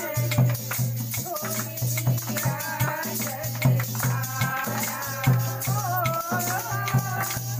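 A group singing a Hindu devotional bhajan to a steady beat on a hand drum, with rhythmic hand clapping throughout.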